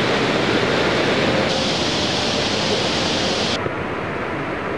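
Steady rush of fast-flowing whitewater in a rocky mountain stream. It cuts off abruptly about three and a half seconds in, leaving quieter outdoor background noise.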